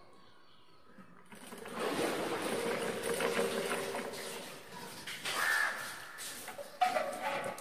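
A bucket hauled up an open well by rope over an overhead pulley: the pulley squeaks and water splashes as the bucket rises, and near the end there is one sharp clank as the metal bucket comes up over the wall.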